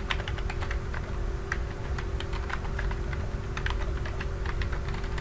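Typing on a computer keyboard: an irregular run of quick key clicks, over a steady low hum.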